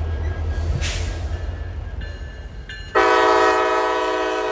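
A freight train's diesel locomotive rumbling low, with a short hiss about a second in; about three seconds in its air horn sounds a loud, steady, several-note chord.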